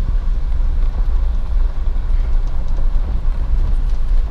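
Steady low rumble of a 2020 Jeep Wrangler driving on a gravel road: tyre and engine noise heard from inside the cabin.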